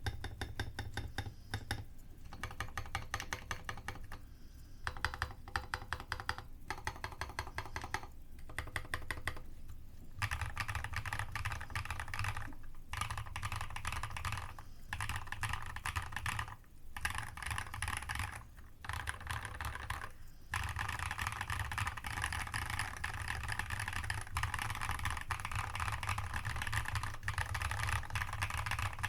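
Artnix GK87 custom mechanical keyboard with MZ Z1 switches and MDA-profile keycaps being typed on: fast keystroke clacks in runs, broken by several brief pauses, then steady unbroken typing over the last third.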